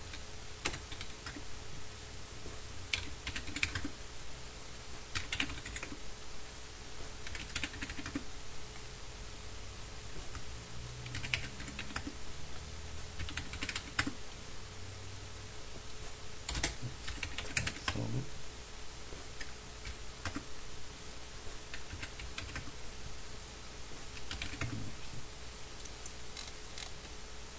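Short runs of keystrokes on a computer keyboard, a few keys at a time every two or three seconds, as numbers are typed in.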